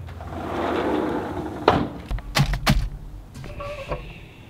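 A few sharp knocks and thuds about two seconds in, then a short squeak near the end.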